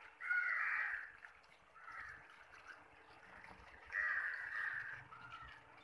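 A crow cawing: two loud caws about four seconds apart, with fainter calls between them.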